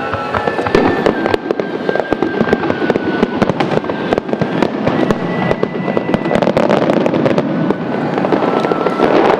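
Fireworks display: a dense, continuous run of crackling bursts and bangs, with a few thin steady whistling tones over the top.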